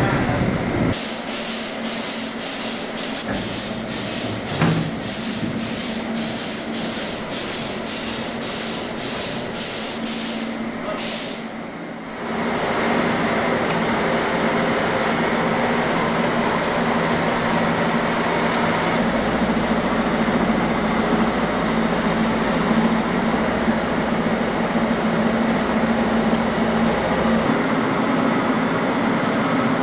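Food-factory production machinery working. For about ten seconds a rhythmic hissing puff repeats about twice a second, like compressed air venting. It stops, then gives way to a steady machine running noise with a low hum.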